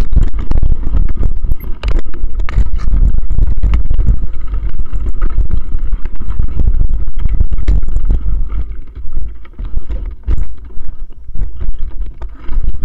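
Wind buffeting the microphone: a loud, irregular low rumble that eases off in the last few seconds.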